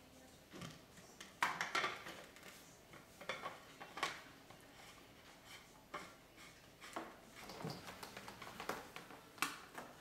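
Clear plastic canisters of a BRS dual reactor being handled and screwed onto their mounting bracket: an irregular run of hard plastic knocks and clicks, the loudest about a second and a half in and near the end.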